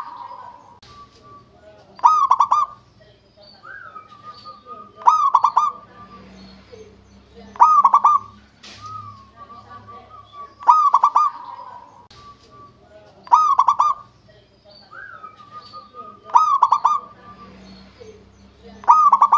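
Zebra dove (perkutut) singing its cooing song: a loud burst of coos repeated about every two and a half to three seconds, about eight phrases in all, with softer trailing notes between them.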